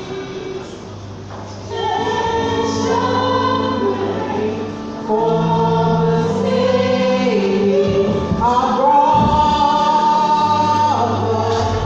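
A small choir of children and young women singing a carol from song sheets; the singing grows louder about two seconds in and again about five seconds in.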